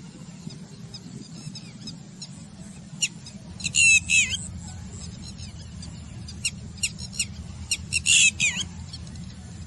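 Red-wattled lapwing giving its alarm call, the "did-he-do-it" cry: short, high, sharp notes, with a loud rapid run of them a few seconds in, scattered single notes after, and another loud run near the end. A steady low rumble lies underneath.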